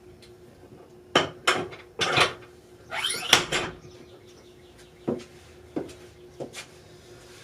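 A run of sharp clanks and knocks with short ringing tails: a loud cluster from about one to three and a half seconds in, then three lighter single knocks. A faint steady hum sits underneath.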